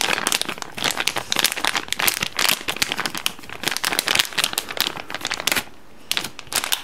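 Plastic slime packet crinkling in the hands as the keyboard-cleaning gel is squeezed out of it. The dense crinkling thins out about five and a half seconds in, with a few last crackles near the end.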